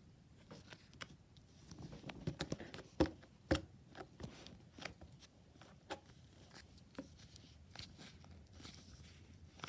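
Red slime being handled by hand: scattered small clicks and crackling pops as it is squished and pressed, with two louder pops about three seconds in.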